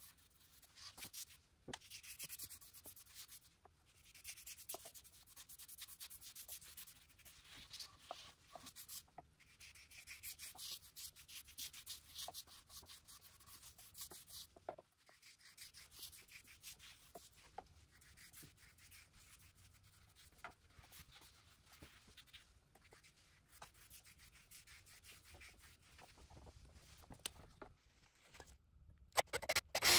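Faint scrubbing strokes on the wooden table surface, hand work rather than a power tool, such as oxalic acid solution being worked into the sanded wood. The rubbing comes in short passages with several brief breaks.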